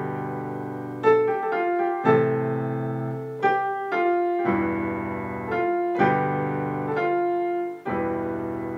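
Korg Pa1X arranger keyboard in a piano voice playing a single-note melody in the right hand over held left-hand chords. The chords change about every two seconds, struck where the melody changes.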